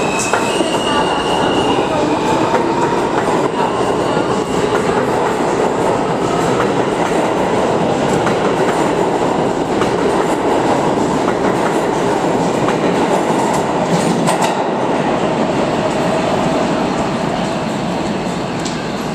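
New York City Subway R160A-1 train pulling out of a station and running past along the platform: a loud steady rumble of steel wheels on rail, with a high motor whine near the start and rail clicks around two-thirds through. It eases off slightly near the end as the last car enters the tunnel.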